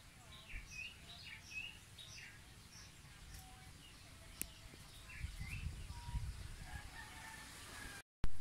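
Birds chirping in short repeated calls, several a second at times, with a low rumble about five seconds in. Near the end the sound drops out for an instant and comes back with a sharp loud pop.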